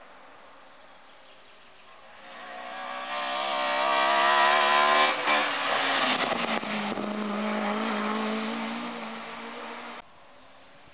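Race car engine at high revs, rising as it approaches, loudest as it passes close, then dropping in pitch as it goes away, with a few sharp cracks around the pass. The engine note stops abruptly near the end.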